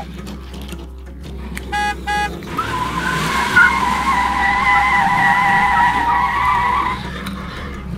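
Electronic toy sound effects: two short beeps, then a wavering, squealing tone lasting about four seconds over a steady low hum.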